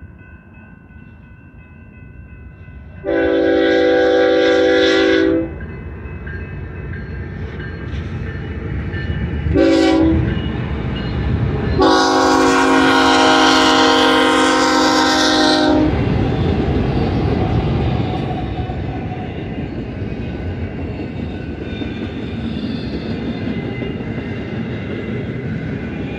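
Locomotive air horn on a BNSF GE ES44C4 freight train sounding three blasts for a grade crossing: a long one, a short one, then a longer one. Faint steady crossing-bell tones ring at first, and after the last blast the double-stack intermodal cars roll past with a loud, steady rumble and rattle.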